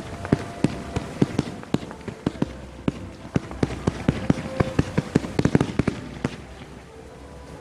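Fireworks going off in a rapid series of sharp bangs and pops, several a second. They come thickest about four to five and a half seconds in, then thin out and stop after about six seconds.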